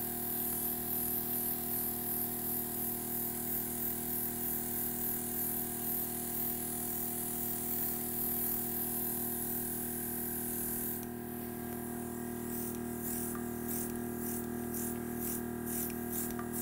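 Airbrush spraying food colour, a steady hiss of air over the even hum of its compressor motor. About eleven seconds in, the hiss drops and turns into a quick pulsing.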